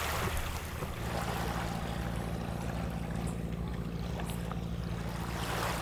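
A boat's engine running at a steady low drone, with a hiss of wind and water over it.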